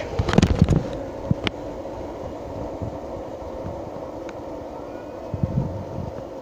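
Several fidget spinners whirring together after being flicked into spin, a steady mechanical hum. A few clicks and knocks from handling come in the first second, with single ticks later.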